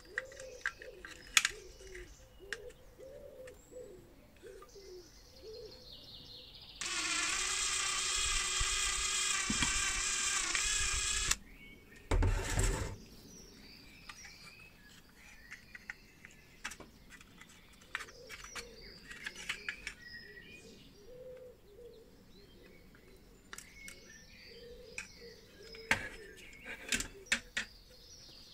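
Birds singing and chirping in the background, with small sharp clicks as the lamp's thin metal clips and fibre plate are handled. In the middle a loud, steady pitched sound with many overtones runs for about four seconds, followed by a brief loud noise.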